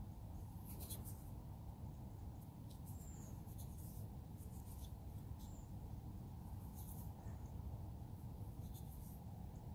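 Fingers rubbing the dirt off a freshly dug metal button: faint, short scratchy rubs every second or two over a steady low background rumble.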